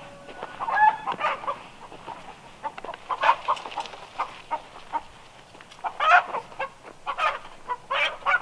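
Chickens clucking, short irregular calls that come in several bursts.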